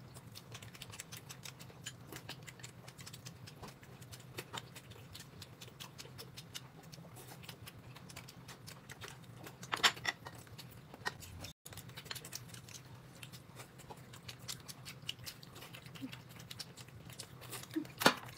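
Faint eating sounds: irregular small clicks and chewing noises, with a louder clatter about ten seconds in, over a faint steady hum.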